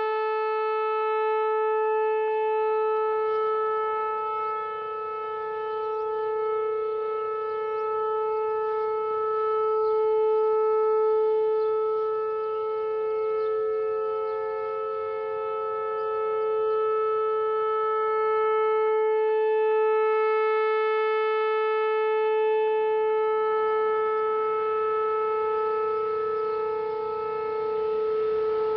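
Whelen WPS-4004 outdoor warning siren sounding a steady, unwavering tone during its three-minute test, its loudness swelling and fading slowly. A hiss of background noise comes up under it near the end.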